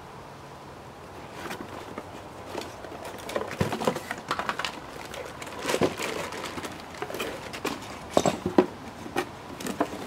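A new wheel hub assembly unpacked from its cardboard box: cardboard and plastic bag rustling, with scattered short knocks and clicks as the part and box are handled and set down on concrete. The sharpest clicks come near the end.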